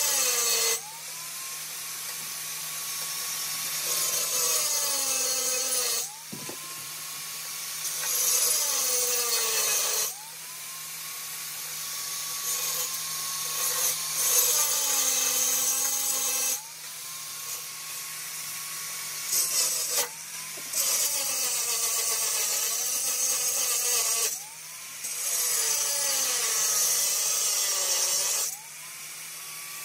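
Handheld electric power tool run in about seven bursts of three to six seconds each. Each burst spins up quickly, then drops in pitch as it is pressed into the work, with a harsh high hiss of abrasion.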